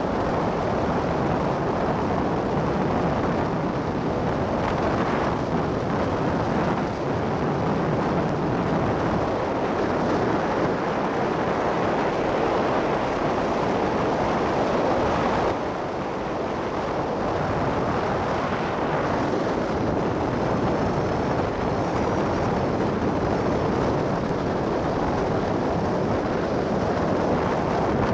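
Motorcycle riding at speed: wind rushing over the camera microphone mixed with engine and road noise, steady apart from a short dip in level about halfway through.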